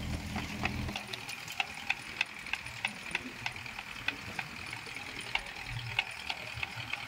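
Crackling and fizzing with scattered sharp clicks, a few a second, from a dense mass of small fish escaped from a burst net and churning at the sea surface. A low engine hum stops about a second in.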